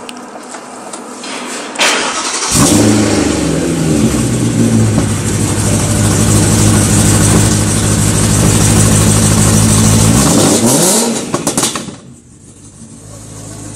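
BMW E92 M3's 4.0-litre V8 with test pipes, cranked by the starter about two seconds in, catching with a loud burst and settling into a steady idle through the quad exhaust. Around ten to twelve seconds in the engine sound falls away, leaving a quieter steady hum.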